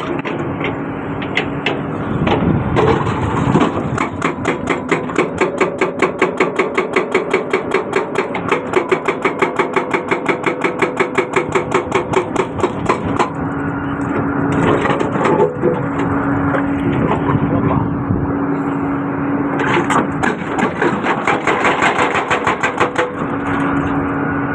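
Excavator-mounted hydraulic breaker hammering in rapid, even blows for about ten seconds, then in shorter bursts, over the excavator's engine running steadily.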